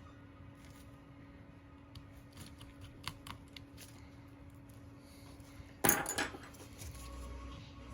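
Small metal tools and tiny parts handled on a work mat: light scattered clicks, then a louder brief clatter of several clicks about six seconds in.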